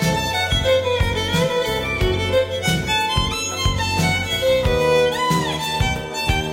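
Music with a steady beat and a lead melody that glides in pitch.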